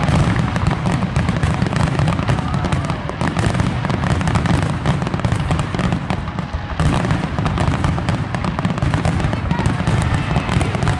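Aerial fireworks going off in a dense, unbroken barrage of booms and sharp bangs, many a second, typical of a show's grand finale.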